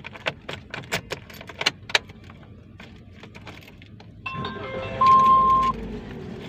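Car keys jangling and clicking, then about four seconds in the car is started: a whine with a loud steady high tone lasting well under a second over a low rumble, settling into a steady low hum.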